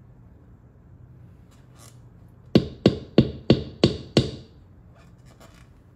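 Upturned stainless steel mixing bowl rapped down on the counter six times in quick succession, about three knocks a second, each with a short metallic ring. It is being knocked to shake loose a sticky soft dough that stays stuck inside.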